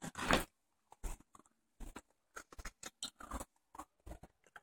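Handling noise from a handheld phone held close: scattered soft clicks and rustles at irregular intervals, a little louder in the first half second.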